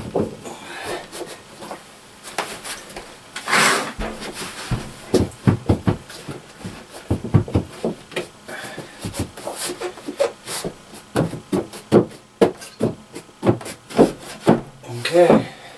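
A lightweight shower base being worked down into its wooden platform: irregular knocks and thumps against the boards, with scraping and rubbing, the longest scrape about three and a half seconds in.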